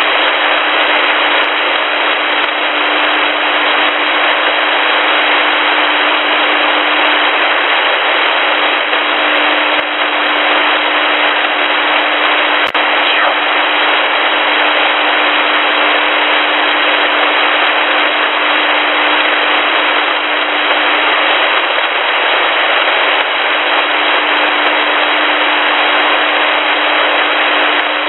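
Shortwave radio static through an upper-sideband receiver: a steady hiss with crackle, with a steady low hum of a carrier beneath it and one sharp click about halfway through. The number station's voice has stopped after its closing zeros, leaving only the open channel.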